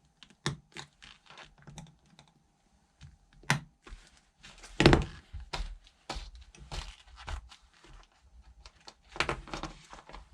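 Irregular clicks and light knocks of small plastic and metal parts of a Tamiya TA06 RC car chassis kit being handled and fitted together by hand, with one louder knock about five seconds in.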